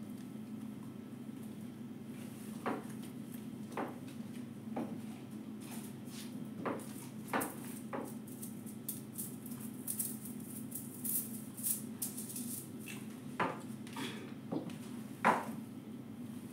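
Handling noises while a stiff gele head wrap is tied: scattered light clicks and a crinkling rustle, busiest about ten to twelve seconds in, over a steady low hum.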